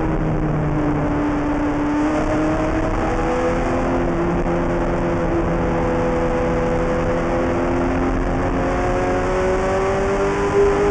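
Ferrari F430 GT race car's V8 engine heard from inside the cockpit at speed on track. The engine note sags slightly early on, holds fairly level through the corner, then climbs steadily in pitch as the car accelerates over the last few seconds.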